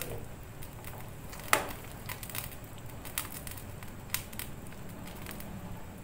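Plastic ladle stirring chicken soup in an aluminium pot, knocking against the pot in scattered clicks, the loudest about one and a half seconds in.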